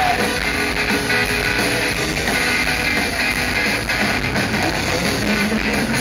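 Live rock band playing an instrumental stretch between sung lines: electric guitars, bass and drum kit at steady full volume, heard through the PA from out in the crowd.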